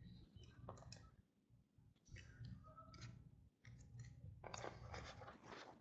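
Faint clicks and rustling of trading cards and pack wrappers being handled and sorted.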